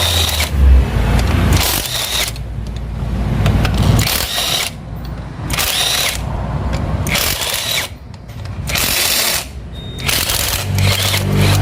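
Workshop power tool running in repeated bursts of a second or two with short pauses between them.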